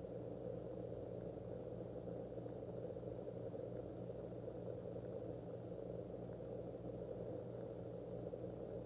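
Steady room tone: a constant low hum with a faint hiss, unchanging, with no distinct events.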